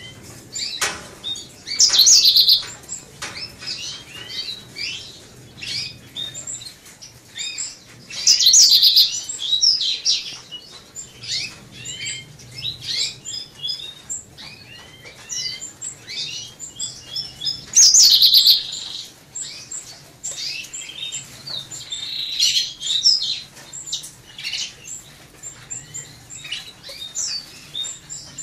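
A flock of Gouldian finches chirping continuously with short, high calls, rising into three louder bunches of calling about 2, 9 and 18 seconds in.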